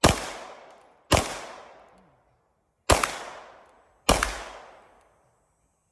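Four gunshots from a handgun at an uneven pace. The first two are about a second apart and the last two follow after a longer gap, and each shot dies away in a long echo.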